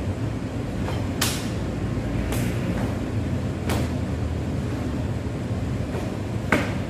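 Four sharp snaps, one to three seconds apart, from the strikes and steps of a taekwondo form done barefoot in a dobok on a wooden floor, over a steady low background hum.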